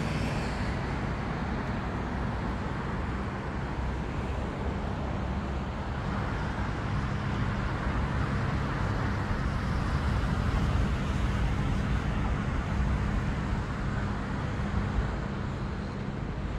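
Steady city road-traffic noise: distant car engines and tyres blending into an even rumble, with a steady low hum underneath.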